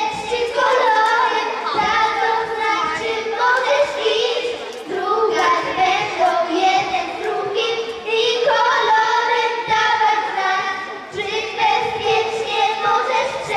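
A group of children singing a song together, in phrases of a few seconds each.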